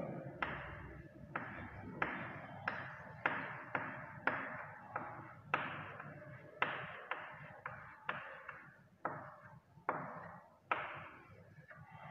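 Chalk tapping and scraping on a chalkboard in a string of short strokes, one or two a second, each starting sharply and tailing off, as a diagram's lines are drawn.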